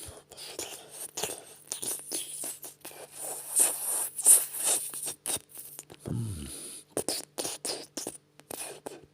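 Wet mouth sounds close to the microphone, imitating oral sex: rapid licking, lip smacks and slurps, loudest in the middle. A short low hum comes about six seconds in.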